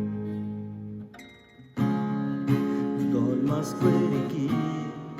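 Acoustic guitar strummed: a chord rings and fades, breaks off for a moment just after a second in, then the strumming starts again.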